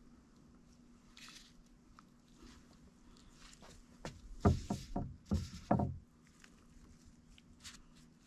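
Light rustling and small clicks of shredded lettuce being spread by hand over the pizza, with a quick run of four or five low thumps about halfway through.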